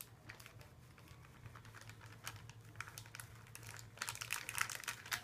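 Clear plastic bag of pancake mix crinkling and crackling as it is shaken and squeezed to empty the mix into a bowl. The crackles grow denser and louder about four seconds in.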